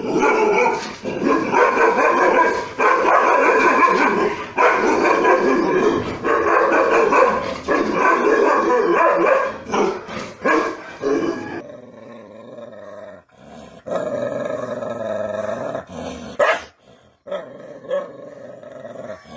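Rajapalayam dogs barking and growling in aggression, loud and nearly unbroken for the first eleven seconds, then quieter, with one long drawn cry a little past the middle and short scattered barks near the end.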